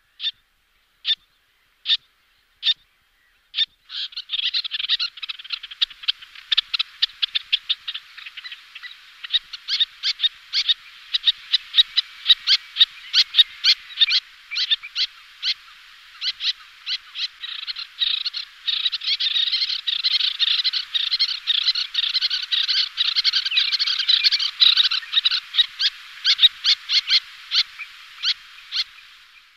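Little terns calling: a few single sharp calls about a second apart, then from about four seconds in a dense, continuous chattering of rapid high calls that runs on, with many calls overlapping.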